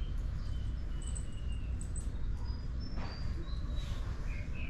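Small birds chirping in short high calls over a steady low background rumble, with a brief rustle about three seconds in.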